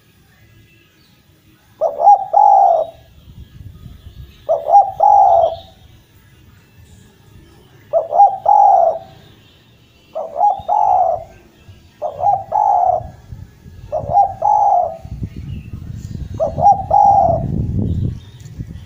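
Spotted dove (Javanese derkuku) cooing in short repeated phrases of two or three notes, seven phrases in all, each about two seconds apart. Faint high chirps sound in the gaps, and a low rumble grows louder near the end.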